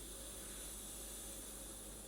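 Air hissing steadily out of an inflated 14-inch electric unicycle inner tube as it is let down.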